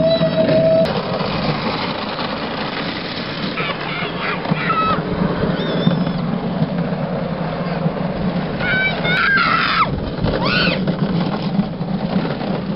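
Steady low rumble of luge carts rolling on a concrete track, with several short high squealing calls that glide up and down, one held near the start and a cluster about nine seconds in.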